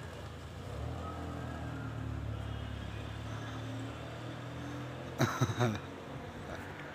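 A steady low engine hum, as of a motor vehicle running nearby. A short cluster of sharp knocks comes about five seconds in.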